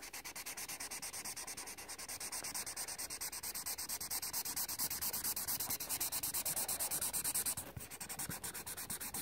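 Felt tip of an Imagine Ink magic marker scribbling on coloring-book paper in fast, even back-and-forth strokes, several a second, with a short break near the end before the strokes resume.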